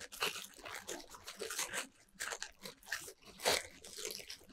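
A small wrapped gift package being opened by hand: the wrapping crinkles and tears in irregular crackles, the loudest about three and a half seconds in.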